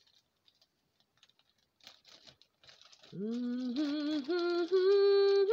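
A woman humming a tune in held notes that step upward in pitch, starting about three seconds in. Before that, faint crinkling and ticking from a plastic zip-top bag as turkey pieces are pulled out of it.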